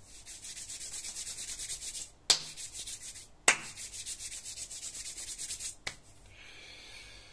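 Rhythmic scratching or rubbing close to the microphone, several strokes a second, broken by two sharp knocks and a smaller click. It gives way to a faint hiss near the end.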